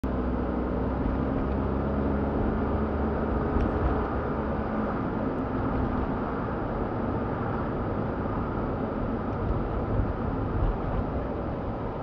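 Car interior driving noise: engine hum with steady low tones for the first few seconds, then even road and tyre noise as the car drives on.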